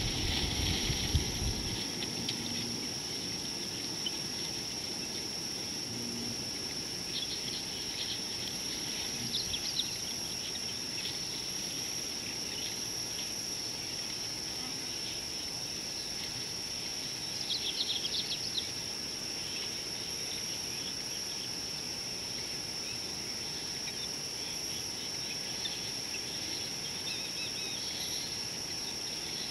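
Bush ambience: a steady high-pitched insect drone, with short chirping calls breaking in twice. A low rumble on the microphone dies away in the first couple of seconds.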